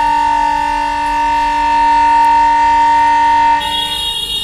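Diesel locomotive horn giving one long, steady blast as the passenger train departs, cutting off about three and a half seconds in and followed by a fainter, higher horn tone near the end.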